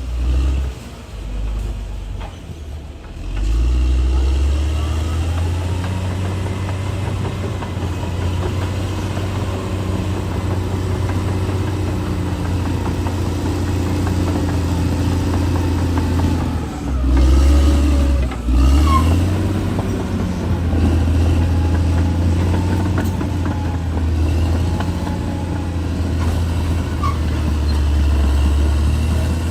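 Bulldozer's heavy diesel engine running steadily under load, its pitch shifting a few times and rising briefly about halfway through as the throttle changes.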